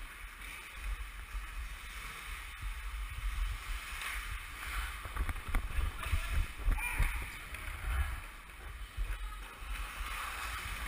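Ice hockey skates scraping and carving across rink ice, heard as a steady hiss, with low wind rumble on the moving body-worn microphone and a few sharp stick clacks about halfway through.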